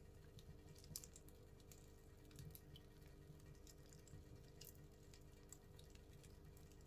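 Wood fire burning down to coals in a brick stove's firebox, crackling faintly: scattered sharp pops and ticks over a low steady hum.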